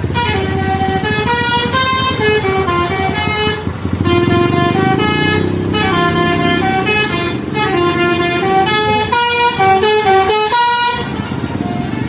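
A tour bus's 'telolet basuri' musical horn playing a running melody of short stepped notes that climb and fall in quick runs, over the steady rumble of bus and truck engines. The melody stops about a second before the end.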